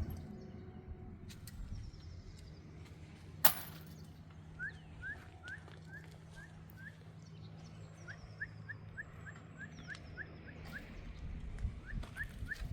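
A bird chirping: runs of short, rising notes, about two a second, with a few fainter, higher calls between them, over a steady low hum. One sharp click sounds about three and a half seconds in.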